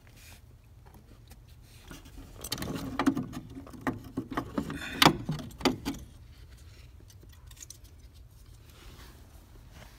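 Clicks, knocks and rattles of plastic and metal parts as an old headlight switch assembly is worked loose and pulled out from under a car's dash, in a busy flurry from about two and a half to six seconds in, with a few lighter ticks after.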